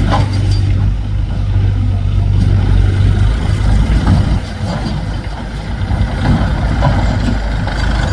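Heavy diesel engine running loudly. It holds a steady low hum for the first three seconds, then turns rougher and more uneven, as when working under load.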